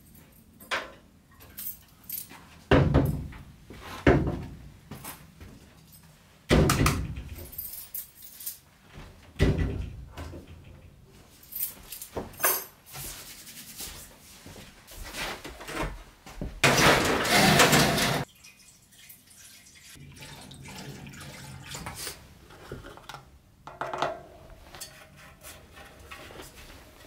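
Metal clanking and rattling from an old steel bicycle being handled, with a series of separate knocks and a dense rush of noise lasting about a second and a half in the middle.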